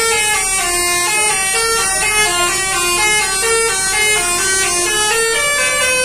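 A tourist bus's 'basuri' telolet musical horn playing a quick tune of held notes that step down and back up, several notes a second.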